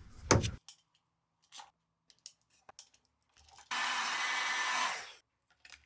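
Small clicks of handling, then a steady rasping hiss for about a second and a half just past the middle.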